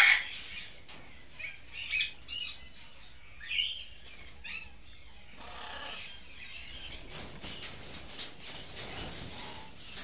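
Moluccan cockatoos in a wire-mesh cage: a few short, high, squeaky calls in the first seven seconds, then a run of quick clicks and rustling as the birds shift their feathers and grip the mesh.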